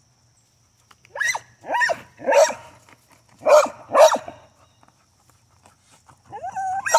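A Carolina dog barking: three quick barks, then a pause and two more, each bark dropping in pitch.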